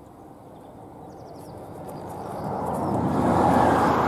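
Steam locomotive hauling a passenger train past, its exhaust and running noise swelling to a peak about three and a half seconds in.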